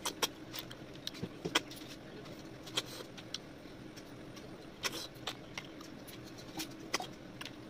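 Close-up eating sounds of a person eating rice and snail curry by hand: irregular sharp mouth clicks and smacks while chewing, about eight in all, over a low steady hum.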